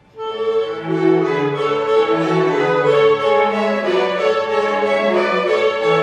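A children's and youth orchestra, led by bowed strings with violins and cellos, playing live in concert. The full ensemble comes in together just after the start and plays on loudly in sustained notes.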